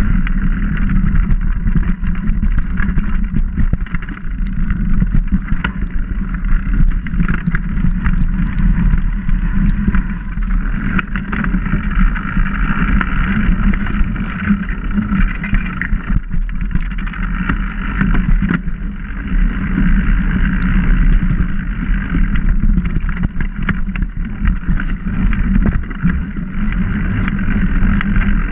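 A bike-mounted camera rides a mountain bike along a dirt forest trail. There is a continuous loud rush of tyre and wind noise on the microphone, dotted with many small clicks and rattles as the bike jolts over roots and leaf litter.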